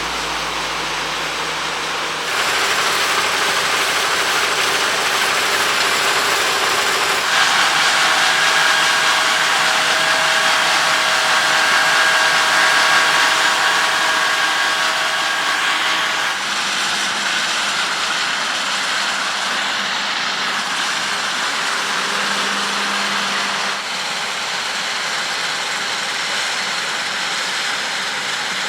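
John Deere X9 1100 combine harvester running while harvesting wheat: a steady, loud machinery drone with high whining tones over it. The sound changes abruptly several times, as if between different recordings of the machine.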